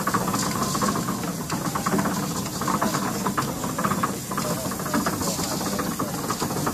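Steam donkey engine with a vertical boiler running, a steady steam hiss with a fast mechanical clatter from its works.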